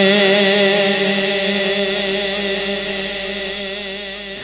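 Sustained chanted vocal drone of a naat recitation: steady held notes with a wavering vibrato line above them, slowly fading toward the end.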